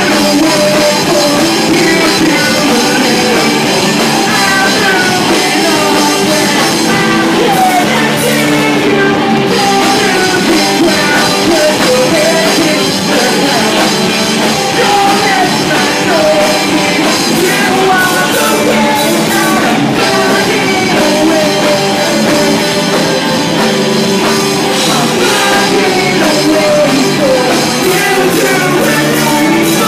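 Pop-punk band playing live: electric guitars and drum kit with a singer on vocals.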